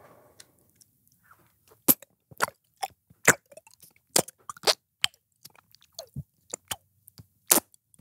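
Mouth noises of someone eating chocolate pudding right up against a microphone: about a dozen sharp, wet smacks and clicks at irregular intervals, starting about two seconds in.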